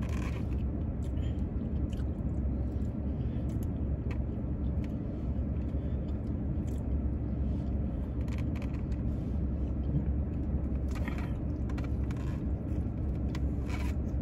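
Steady low rumble inside a car's cabin from the idling engine, with a few faint clicks and rustles over it.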